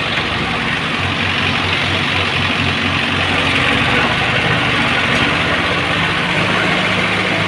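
Heavy diesel engine of earth-moving machinery running steadily at a low, even speed.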